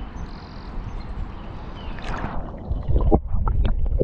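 River water lapping and splashing at a camera held at the surface, then muffled underwater gurgling and rumble with small bubbly clicks once the camera goes under, about three seconds in.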